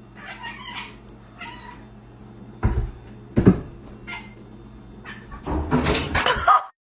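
Domestic cat meowing in short calls, with two sharp thumps around the middle and a louder, noisy stretch near the end that stops suddenly.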